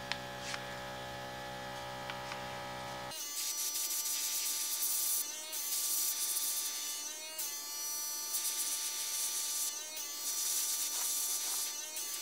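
Small airbrush compressor humming, then from about three seconds in the airbrush hisses in a series of bursts of a couple of seconds each as it sprays pearl white paint over the compressor's steady hum.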